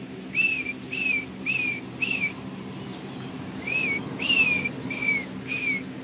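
A person whistling: two runs of four short notes, each rising then falling, with a pause of about a second between the runs.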